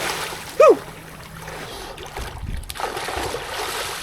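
Lake water splashing and sloshing, with a short falling squeal about half a second in.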